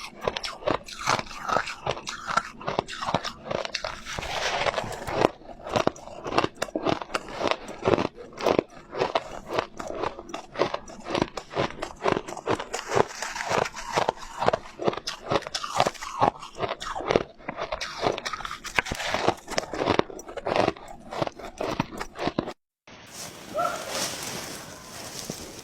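Close-miked crunching and chewing of soft white ice, a rapid, irregular run of crisp bites that stops abruptly near the end, leaving a quieter hiss.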